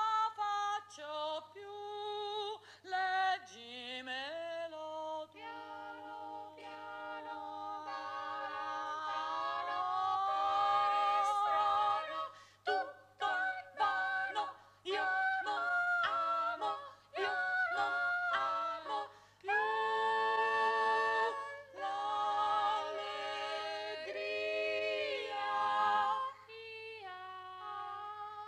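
Several women's voices singing a cappella in close harmony, with held notes and one voice gliding while the others hold, broken by short pauses between phrases.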